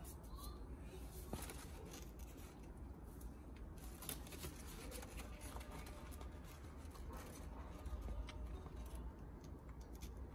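Light rustling with scattered small crackles as a hand handles the leaves of a Calathea orbifolia, whose leaves are drying out from too little humidity.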